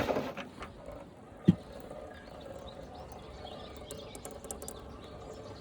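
A single dull thump about one and a half seconds in, then faint outdoor background with a few faint bird chirps.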